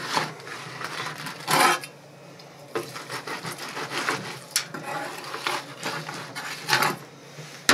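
Knife cutting and scraping through a smoked brisket's crust on a wooden cutting board, with metal utensils clinking: a string of short scrapes and clinks.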